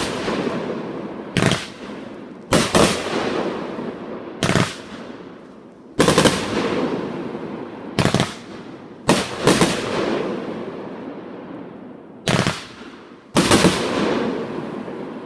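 Aerial firework shells bursting overhead: about ten sharp bangs, some in quick pairs, each trailing off in a long echoing rumble.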